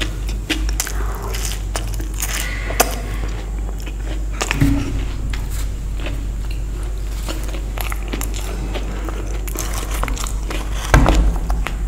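Close-miked eating: a person biting and chewing crisp fried Indian street food, with irregular crunches, the loudest near the end, over a steady low hum.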